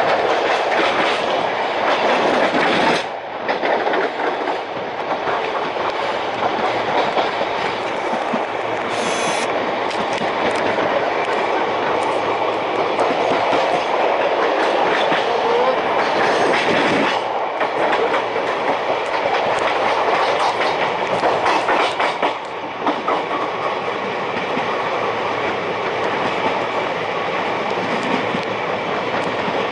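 Express passenger train running fast, heard from one of its own coaches: steady rumble with a rapid clatter of wheels over track joints and crossings, dipping briefly a few times.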